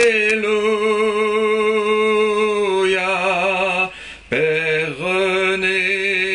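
A man singing a slow church-style chant, drawing out long held notes with vibrato; a short breath break comes about four seconds in before the next long note.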